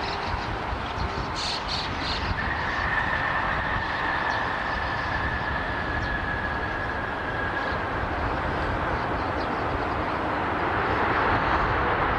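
Jet airliner engines running: a steady rumble and hiss, with a high whine over the middle that holds for several seconds and sinks slightly in pitch, growing louder near the end.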